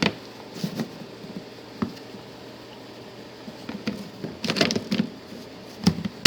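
Plastic engine-bay cover being handled and fitted back into place, giving a scattered run of short clicks and knocks, several close together about four to five seconds in.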